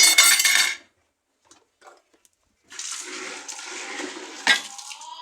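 Dishes and cutlery clattering for under a second, then after a short silence a steady rush of running water, with one sharp knock near the end.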